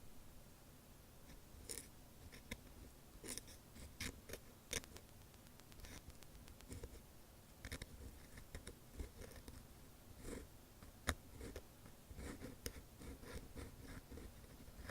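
Ear pick (mimikaki) scratching and tapping close to the microphone: faint, irregular scrapes and small clicks, with one sharper click about eleven seconds in.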